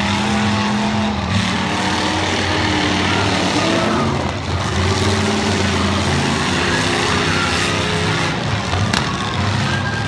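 Engines of several demolition derby cars running and revving, their pitch rising and falling as the cars move around the arena. One sharp tick near the end.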